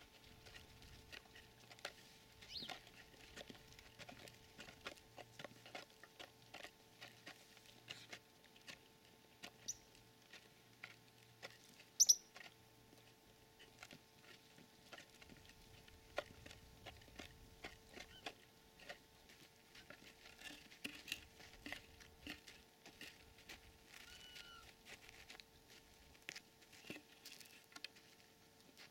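Ostriches and an emu pecking feed from a plastic bowl: faint, irregular taps and clicks of beaks against the bowl and the feed, with one louder click about twelve seconds in.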